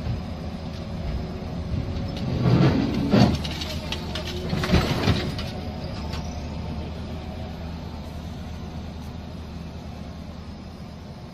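A KamAZ dump truck lying on its side is pulled upright by an excavator, with the excavator's diesel running steadily underneath. Loud banging and thudding about two and a half to three seconds in as the truck comes down onto its wheels, and another crash about five seconds in.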